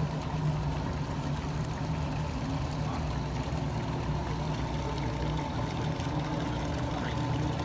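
Motorboat outboard engines running steadily, a continuous drone with a deep hum under it.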